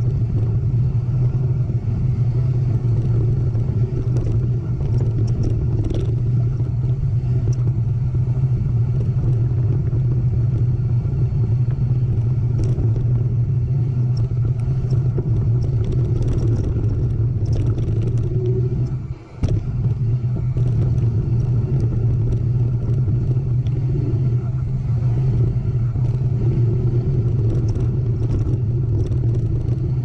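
Steady rumble of wind and trail noise on a riding mountain biker's camera, with scattered clicks and rattles from the bike. The sound briefly drops out about two-thirds of the way in.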